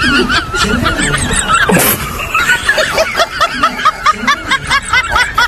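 Giggling laughter, a long run of quick repeated high-pitched 'hee' bursts about three or four a second, over background music.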